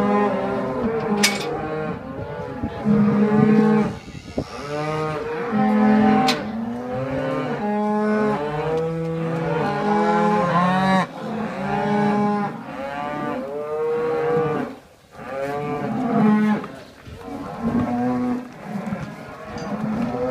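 Cows and calves mooing almost without a pause, many calls overlapping; some moos rise and fall and others are held long and steady. The cattle are calling as they are let out of their winter barn.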